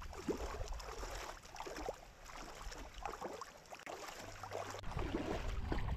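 Faint, irregular splashing and sloshing of people wading on foot through shallow water.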